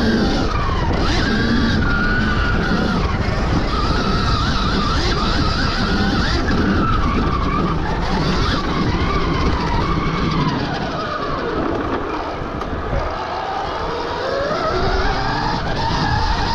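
Stark Varg EX electric dirt bike being ridden hard on dirt trails: the motor's whine rises and falls with the throttle over a heavy rush of wind and tyre noise. The whine drops lower about two-thirds of the way through, then climbs again near the end.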